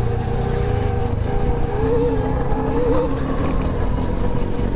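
Bomb Moto B2 electric dirt bike under way: a steady motor whine with its chain drive, the pitch wavering a little with the throttle, over a low rumble of wind on the microphone.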